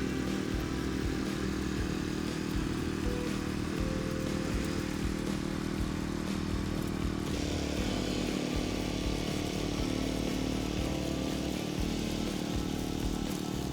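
Walk-behind tractor's engine running steadily under load as it pulls a fan potato digger through the soil. The engine note shifts abruptly about seven seconds in.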